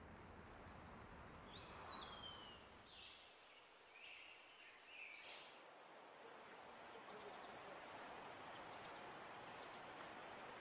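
Faint outdoor ambience: a steady hiss of background noise with a few bird calls. One call rises and falls about one and a half seconds in, and short high chirps come around the middle.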